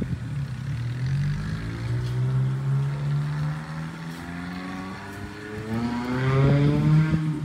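A motor vehicle's engine running and accelerating, its pitch rising in two climbs, louder near the end.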